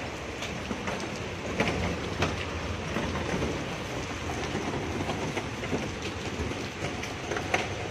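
Heavy rain falling on a city street: a steady hiss with a few sharp taps.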